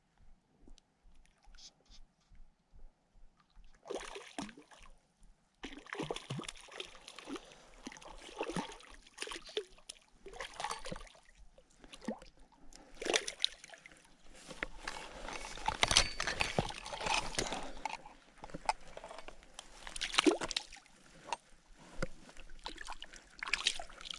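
Hooked cutthroat trout splashing in shallow water at the rocky lake edge as it is brought in, starting about four seconds in, mixed with sloshing and scuffing as the angler steps down among the wet rocks and reaches for it.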